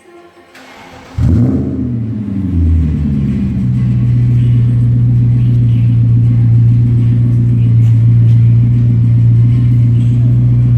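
BMW 545i's 4.4-litre V8 started up through a custom straight-pipe exhaust: a short crank, then it catches about a second in with a flare of revs that drops away, settling into a steady, deep idle.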